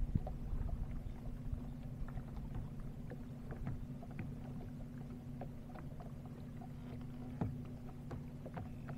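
Boat motor running steadily at trolling speed, a low even hum, with scattered light ticks and small water slaps against the hull and one sharper knock near the end.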